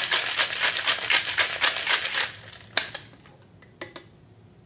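Ice rattling hard and fast in a Boston shaker (glass mixing cup over a metal tin) as a cream cocktail is shaken. The shaking stops about two seconds in, followed by a single sharp knock and a couple of light clicks as the glass is pulled off the tin.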